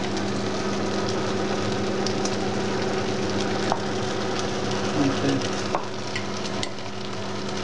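Peppers, tomatoes and chicken sizzling steadily as they fry in a pot, over a steady low hum. A few light clicks of a metal spoon against the glass jar and the pot as tomato paste is spooned in.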